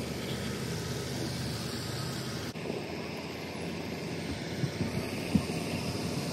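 Steady rumble and hiss of a moving vehicle, with a couple of short thumps near the end.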